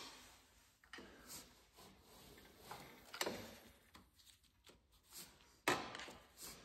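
A few sharp clicks and knocks with faint scraping, from a screwdriver in the spark plug hole of a Briggs & Stratton V-twin mower engine being turned over slowly by hand to find top dead centre. The loudest clicks come right at the start and about five and a half seconds in.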